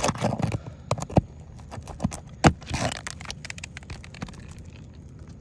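A roofing nail being pried out from under a shingle: scraping with several sharp cracks and knocks, the loudest about two and a half seconds in.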